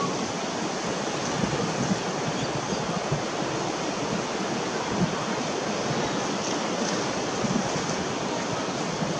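Steady rushing noise of wind buffeting the microphone.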